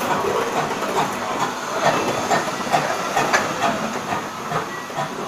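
GWR No. 813, a small 0-6-0 saddle-tank steam locomotive, rolling slowly past with its coach. There is a steady hiss of steam and irregular clicks and knocks of wheels on the rails.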